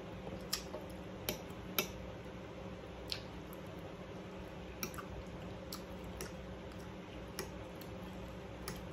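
Quiet eating sounds: scattered wet mouth clicks while chewing and light taps of a fork against a plate, over a steady low hum.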